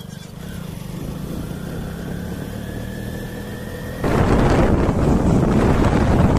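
A vehicle engine running steadily. About four seconds in, a loud rush of wind noise on the microphone suddenly cuts in over it.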